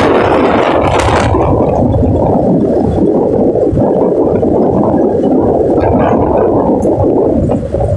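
Strong wind blowing and buffeting the microphone: a loud, uneven low rumble that eases a little near the end.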